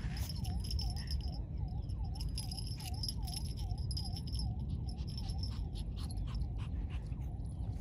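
Small collar bell and chain jingling in quick irregular clicks as a French Bulldog puppy rolls and wriggles on the grass, over a steady wind rumble on the microphone. A faint chirp repeats about two to three times a second in the background.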